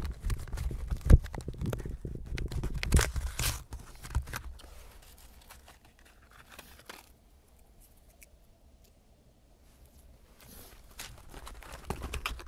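Crinkling and tearing of a small firework's paper-and-plastic packaging as it is handled, with knocks and bumps on the phone's microphone, the loudest about a second in. Quiet for several seconds, then footsteps near the end.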